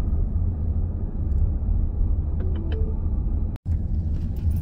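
Minivan driving, a steady low rumble of engine and road noise, which drops out for an instant a little past halfway.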